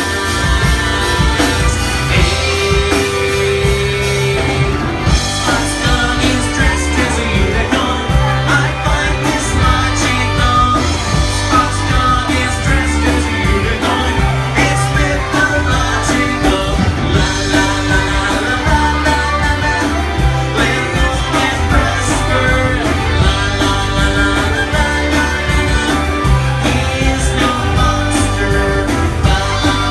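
Live rock band playing a song with electric guitars and keyboard over a steady beat, with a singer on lead vocals.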